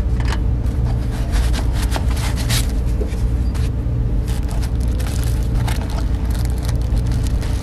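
Cardboard box flaps and paper wrapping rustling and scraping in short, irregular bursts as hands open a product box and reach inside. Under it runs a steady low hum.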